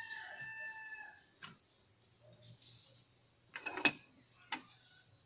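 A rooster crowing for about the first second. Then a short sharp clatter of a metal pot lid being handled, about four seconds in and the loudest sound, followed by a lighter click. Birds chirp faintly in the background.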